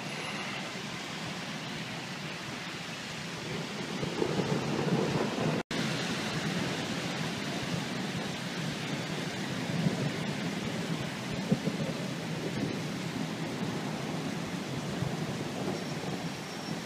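Heavy rain hissing steadily while rolling thunder rumbles, swelling about four seconds in and again around ten seconds. The sound drops out for an instant near six seconds.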